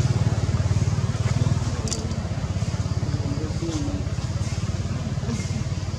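A low engine running steadily, with a fast, even pulse.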